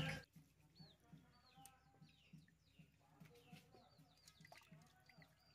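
Near silence with faint farmyard birds in the background: repeated short chirps about twice a second and soft clucking of hens.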